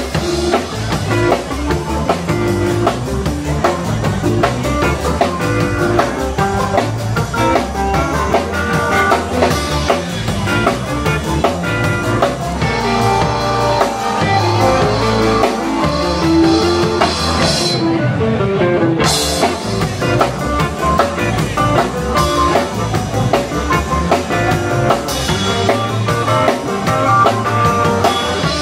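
Live blues-rock band playing an instrumental: electric guitar, bass guitar, drum kit and harmonica. About two-thirds of the way through, the cymbals drop out for about a second, then come back in.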